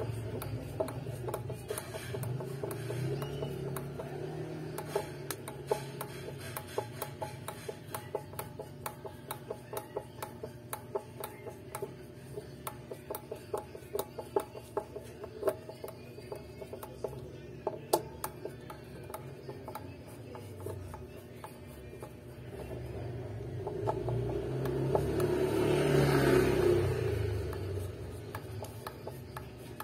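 Screwdriver turning out the neck-plate screws on the back of an electric guitar: a long run of small metal clicks and scrapes. Background music plays under it and gets louder near the end.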